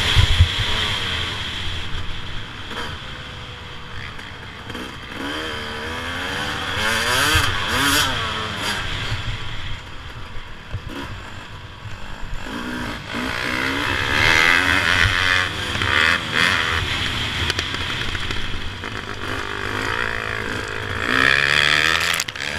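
Suzuki RM250 two-stroke motocross engine heard from on board, revving up and dropping back again and again as the bike accelerates, shifts and slows for the turns.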